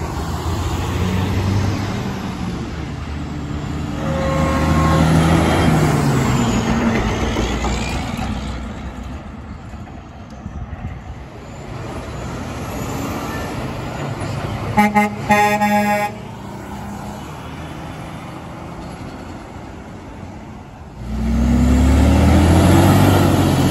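Heavy diesel trucks passing on a highway. About two-thirds of the way through, a Kenworth T880SH dump truck's PAI Excel air horns sound in a few quick blasts. Near the end a diesel truck engine pulls away, rising in pitch.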